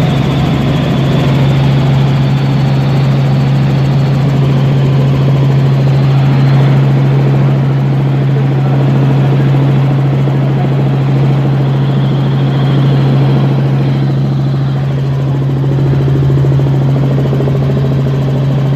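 Light helicopter in cruise flight heard from inside the cabin: a loud, steady drone of engine and rotors with a deep hum.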